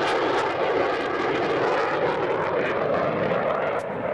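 CF-18 Hornet jet fighter with its twin General Electric F404 engines at high power, a steady jet roar as it climbs away overhead, the high end thinning out just before the end.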